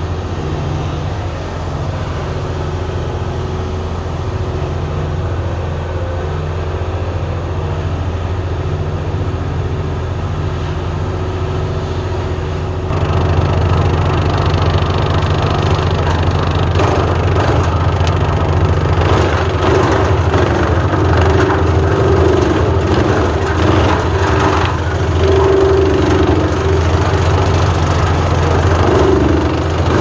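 The ProTrac minitractor's Lombardini LDW 1503 three-cylinder diesel runs steadily, driving a Farmi CH 160F disc wood chipper through the PTO. About 13 seconds in, branches are fed in and the chipper starts crunching and cracking them, louder, until the end.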